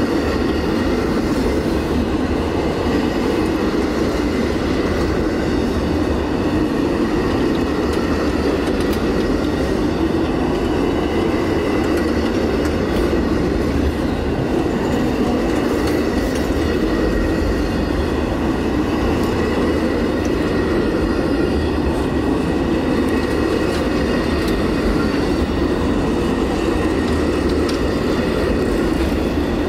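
Amtrak Auto Train's bi-level autorack cars rolling past: a steady rumble of steel wheels on rail, with faint high ringing tones and a few light clicks over it.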